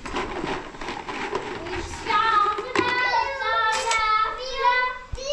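A young child singing in a high voice, starting about two seconds in. Before that, soft handling noises of plastic and glassware.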